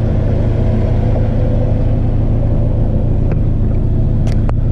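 A 1990 Honda Civic DX's four-cylinder engine idling steadily, with a few short clicks near the end.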